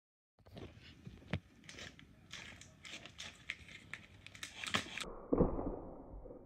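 Taped cardboard armour fauld bands being pushed and flexed by hand: crinkling and crackling with many small sharp clicks of cardboard and tape. About five seconds in the sound turns more muffled, with a louder rustle just after.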